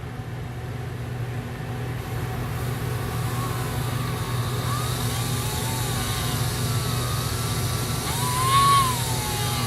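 Motor-driven polishing wheel of a graver-sharpening setup running with a steel graver held against it: a steady hum under a hiss that grows over the first few seconds. A wavering whine from the tool on the wheel comes in partway through and is loudest near the end.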